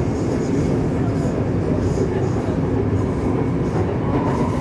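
Taipei Metro C301 steel-wheel train heard from inside the car as it gathers speed: a steady rumble of wheels on rail. A faint steady whine joins about four seconds in.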